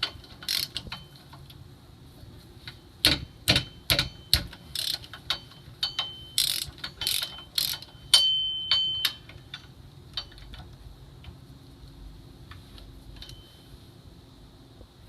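Ratchet wrench clicking in quick runs as the rear wheel hub assembly's mounting bolts are turned out, with a light metallic ring. The clicking is busy for most of the first nine seconds, then thins to a few stray clicks.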